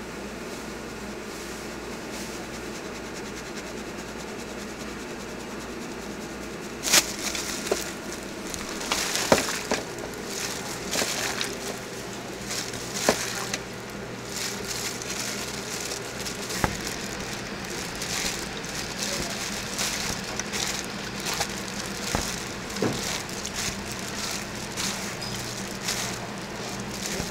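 Steady kitchen hum, then from about seven seconds in a run of sharp knocks and rustling as raw squid strips are tossed and pressed through dry flour in a steel bowl by a gloved hand, dredging them for frying.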